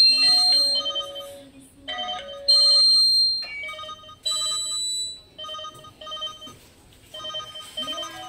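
Electronic ringtone of an incoming video door phone call: a repeating melody of short notes, with a loud held high beep at the start, about 2.5 s in and again about 4 s in.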